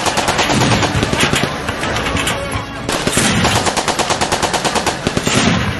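Sustained rapid automatic gunfire, a fast even stream of sharp shots, with a brief let-up about three seconds in.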